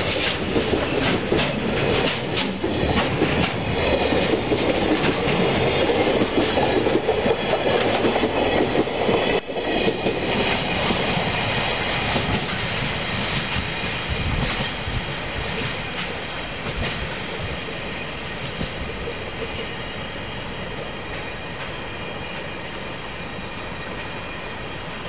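Loaded container flatcars of a freight train rolling past, wheels clacking over rail joints. After about ten seconds the clacking gives way to a steady noise that fades as the last wagon pulls away.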